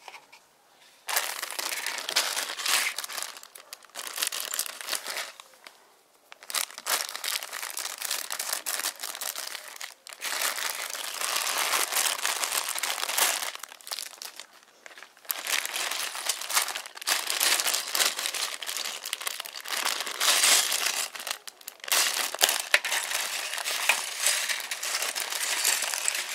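Clear plastic bags of toy building bricks crinkling as they are handled and emptied, in several long bouts with short pauses between.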